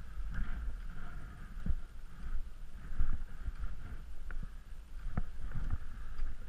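Skis hissing and scraping through off-piste snow, the hiss swelling and fading with each turn, over a steady wind rumble on the microphone. A few sharp knocks come through, the loudest about three seconds in.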